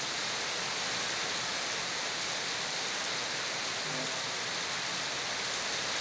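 Heavy rain pouring steadily onto a flooded road: a dense, even hiss.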